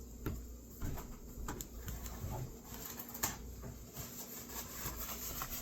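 Scattered light clicks and knocks at irregular intervals, from things being handled in a kitchen after the green beans were rinsed.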